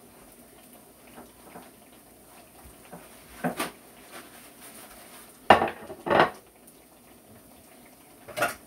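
Kitchenware clattering: four separate sharp clinks and knocks of pots, dishes or utensils being handled, the loudest about halfway through.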